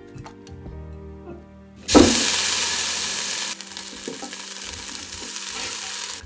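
A sudden loud sizzling hiss about two seconds in, fading, then dropping to a quieter hiss that stops abruptly near the end, as oiled broccolini is arranged with tongs in the air fryer basket. Background music plays under it.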